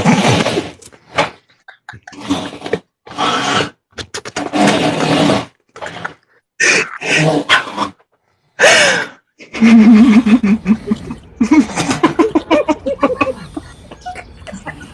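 A man snoring loudly and fast, about one snore every two seconds. In the second half the snores run together into a longer stretch of rapid pulses.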